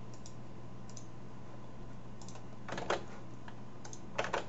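Computer mouse clicking: a few faint single clicks, then two louder double-clicks, about three and four seconds in, over a faint steady electrical hum.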